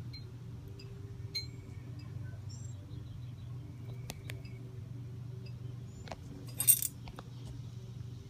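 Savannah monitor lizard chewing a hornworm: scattered small wet clicks, with one sharp, louder crunch about six and a half seconds in. A steady low hum sits underneath.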